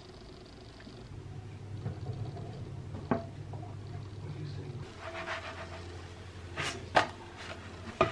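Quiet kitchen sounds of a crepe cooking in a non-stick frying pan on an electric hob: a low hum with a few light knocks and clinks of the pan, the louder ones near the end as the crepe is slid from the pan onto a plate.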